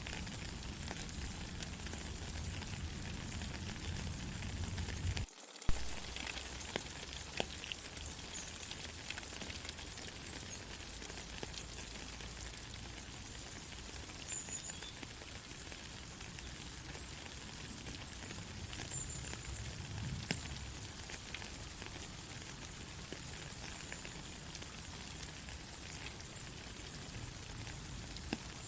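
Steady rain falling, a dense even hiss with scattered ticks of drops. A low rumble sits under it for the first five seconds, then the sound drops out briefly and comes back with a sharp click.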